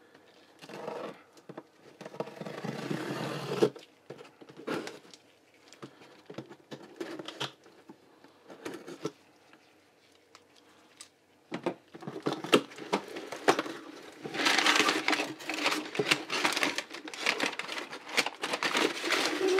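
A cardboard shipping box being unpacked. First comes a few seconds of packing tape being peeled and torn, then scattered clicks and scrapes of a knife and cardboard. Over the last several seconds, crumpled kraft packing paper crinkles and rustles as it is pulled out.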